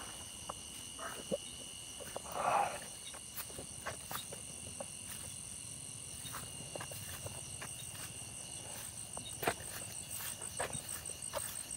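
Night chorus of crickets, several steady high-pitched trills running together, one pulsing faster near the end. Scattered soft clicks and rustles of footsteps through dry grass and brush, with one brief louder rustle about two and a half seconds in.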